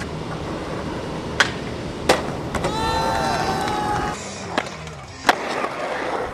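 Skateboard rolling on concrete, with several sharp wooden clacks of the board popping and landing. A voice calls out in a long, wavering call about three seconds in.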